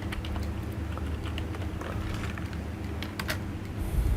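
Computer keyboard typing: irregular, scattered keystroke clicks over a steady low hum, with a low thump near the end.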